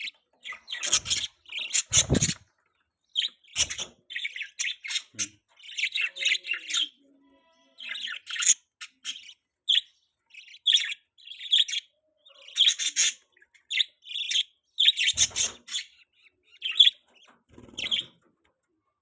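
Baby budgerigar chirping in quick runs of short, high chirps with brief pauses between them. A few dull thumps come in among the chirps.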